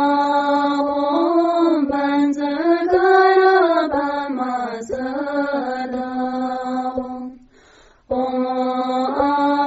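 Buddhist mantra chanted melodically by a single voice in long held notes that glide up and down. It breaks off briefly about seven and a half seconds in, then starts again.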